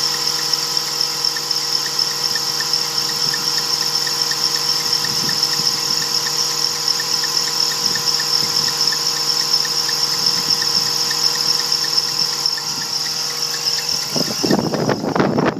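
2001 BMW 330i's straight-six engine idling with its drive belt squealing, a steady high-pitched whine over the engine's hum and a faint regular ticking. Near the end the steady sound cuts off and a louder irregular rustling noise follows.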